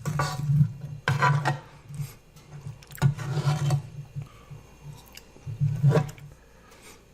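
Close-miked eating sounds: a mouthful of spicy zucchini-noodle ramen being chewed, in four short wet bursts about a second or two apart.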